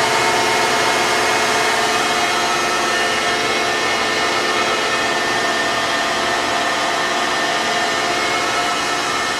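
1994 Bridgeport EZ Path CNC turning center running under power: a steady machine hum with several constant whining tones on top.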